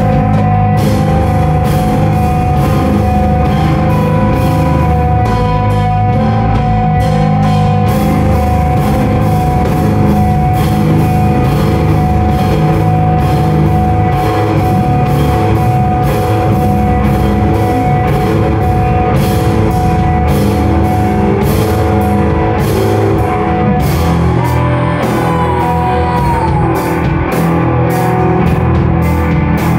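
Live rock band playing loudly: sustained guitar chords over a steady drum beat.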